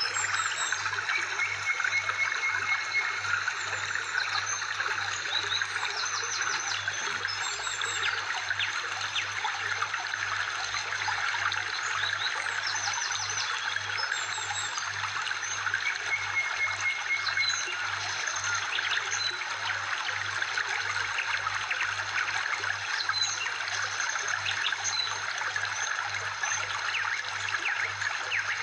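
Steady trickling-water sound with scattered short high chirps over it, a background loop that repeats about every 14 seconds.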